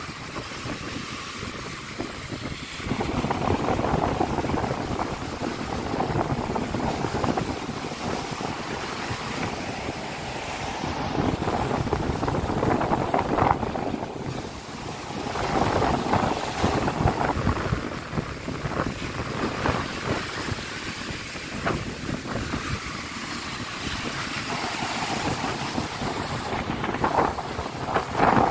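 Storm surf breaking on a pebble beach, the rush of the waves swelling and easing in repeated surges, with wind buffeting the microphone.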